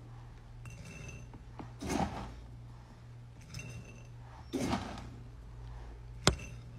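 Rabbit feed pellets poured from a plastic scoop into a bowl, twice, about two and a half seconds apart, each a short rattling rush, with a sharp click near the end. A low steady hum runs underneath.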